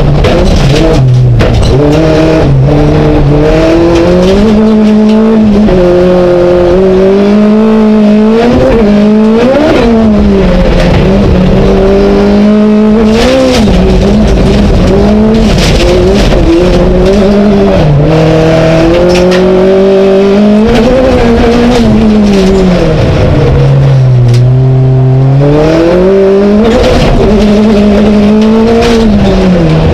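Skoda Fabia Super 1600 rallycross car's 1.6-litre four-cylinder engine at racing revs, heard from inside the cockpit. Its pitch climbs and drops again and again through gear changes and lifts, with loud tyre and surface noise underneath.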